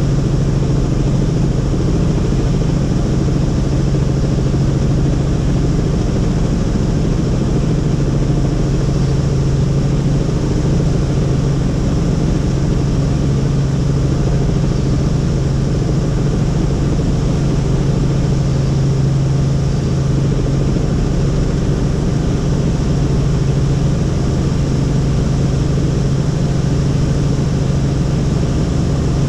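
Helicopter in flight: a steady, loud drone of rotor and turbine engine noise with a constant low hum, unchanging throughout.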